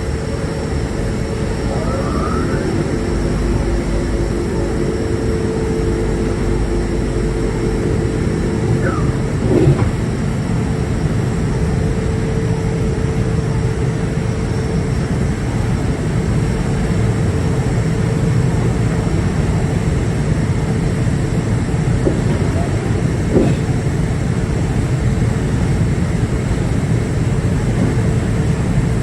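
Passenger ferry's engines and ventilation running as a steady low rumble with a steady hum over it, with a couple of faint knocks.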